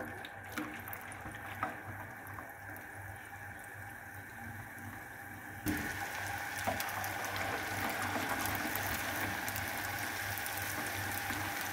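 Cornflour-battered red snapper slices deep-frying in hot oil in a frying pan: a steady sizzle of bubbling oil. It is quieter for the first half, with a few light clicks, then becomes a louder, even sizzle about six seconds in.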